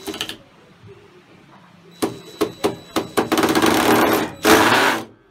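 Workshop metal noises: a knock at the start, then a quick series of sharp knocks about two seconds in, followed by about a second of dense rasping and a louder burst of noise near the end.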